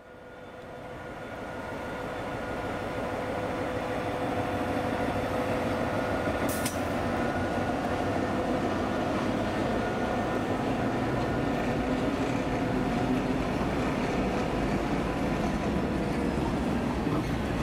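DB class MZ diesel-electric locomotive approaching and running past with a train of empty flat wagons. Its engine noise and the rumble of the train build over the first few seconds, then hold steady as the locomotive and wagons go by, with a single short click about six seconds in.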